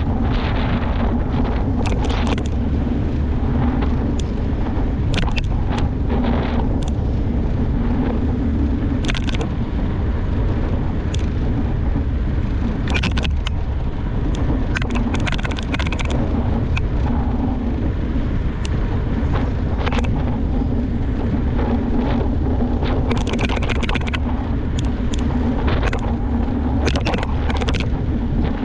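Mountain bike being ridden, heard on an action camera's microphone: a steady low rumble of wind and tyres rolling, broken by frequent short clicks and rattles from the bike going over bumps.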